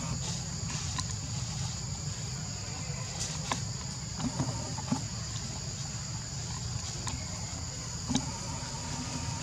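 Steady high-pitched drone of an insect chorus, held on two close pitches, over a low steady rumble, with a few faint scattered clicks.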